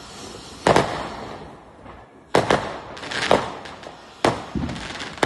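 Fireworks going off: a series of sharp bangs, each trailing off in a short rumble. A double bang comes about a second in, a quick cluster follows between two and three and a half seconds, and two more come near the end.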